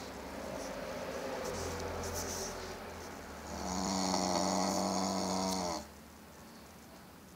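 A pug snoring: two long snores, the second louder and harsher with a hissing edge, cutting off suddenly about six seconds in.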